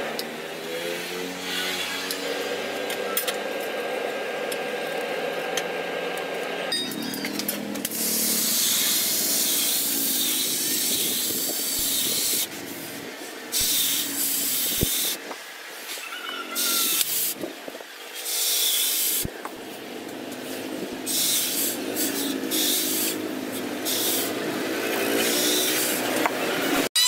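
Red-hot steel axe head hissing as it is dipped into a trough of water to quench it. The hiss comes in several stretches with short breaks from about eight seconds in, over a steady hum that is heard alone beforehand.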